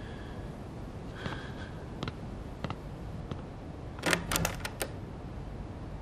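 Footsteps on a hard floor walking away, faint and evenly spaced, then a quick run of sharp clicks and knocks about four seconds in.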